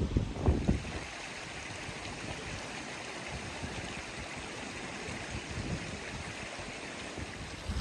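A stream running steadily, a constant rushing hiss of water. Some brief low buffeting on the microphone in the first second.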